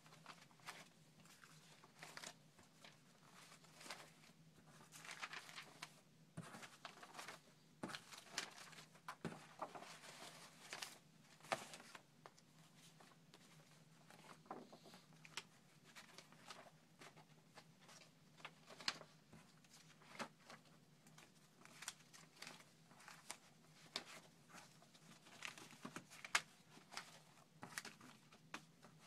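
Old magazine pages and paper clippings being handled and turned over: faint, irregular rustling with short crackles of paper throughout.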